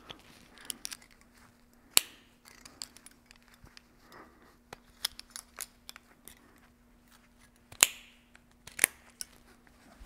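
Metal climbing hardware clicking and snapping as it is clipped and worked onto a rope at the harness while rigging for a rope ascent. Three sharp snaps stand out, one about two seconds in and two near the end, with lighter clicks and handling rustle between, over a faint steady hum.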